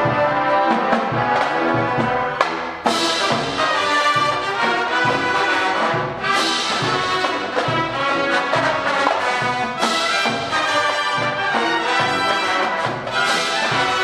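Marching band playing: brass with sousaphones over a steady beat from marching drums. A brief dip about three seconds in gives way to a loud full-band entry.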